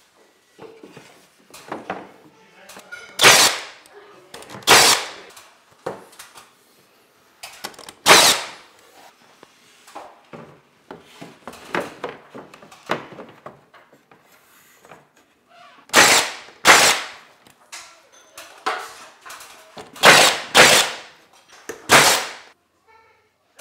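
Milwaukee cordless battery trim nailer firing nails up through ceiling panel molding: about eight sharp shots, singly and in quick pairs. Lighter knocks and taps come between them as the molding frame is pressed into place.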